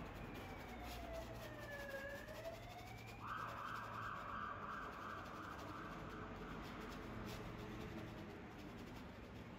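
Faint siren wail: one tone slides slowly down for about two seconds, then rises again. About three seconds in, a steadier hiss-like band comes in for about three seconds.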